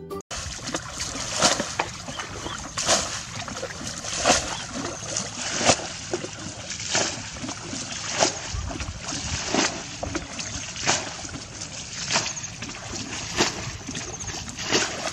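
A person wading through shallow muddy water, one splash with each step, evenly spaced about every second and a half.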